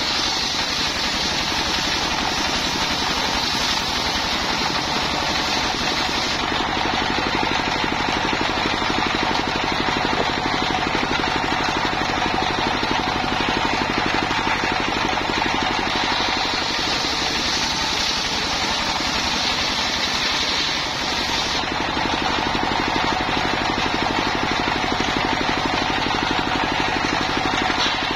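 Single-cylinder horizontal diesel engine running steadily, driving a circular sawmill blade. A higher, harsher cutting sound from the blade working through timber comes in for roughly the first six seconds and again from about 16 to 21 seconds in.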